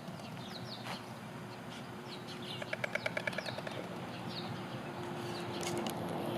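White storks bill-clattering: a rapid, even run of wooden clacks, about ten a second for roughly a second, a few seconds in. This is a mated pair clattering together at the nest as a greeting. Small birds chirp throughout, and road traffic grows louder toward the end.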